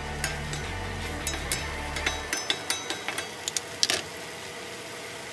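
Eggplant and peppers sizzling in a wok while two wooden spatulas toss them, with quick clicks and knocks of wood against the pan that get busier toward the middle. The knocking stops about four seconds in, leaving the steady sizzle.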